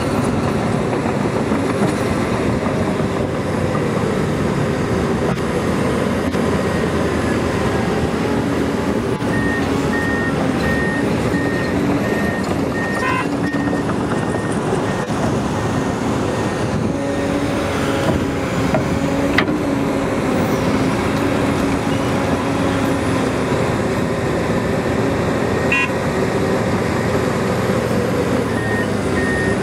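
Komatsu PC800LC hydraulic excavator's diesel engine and hydraulics working hard as it digs soil, swings and dumps into a dump truck, the engine pitch shifting with the load. A high repeated beep sounds about ten seconds in and again near the end.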